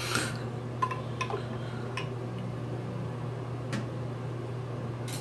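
Small makeup containers, among them a nail polish bottle, being handled and set down, giving a few light, separate clicks and taps against a glass countertop over a steady low hum.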